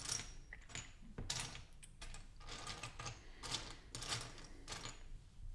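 Small loose plastic LEGO pieces clattering and clicking as a hand sorts through a pile of bricks, in a string of short rattles with small gaps between them.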